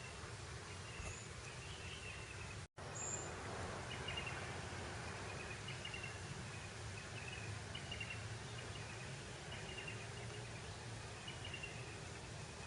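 Breeze over open grassland as a steady outdoor hiss, with short high chirps repeating about once a second and an occasional higher chirp. About three seconds in, the sound cuts out completely for a split second.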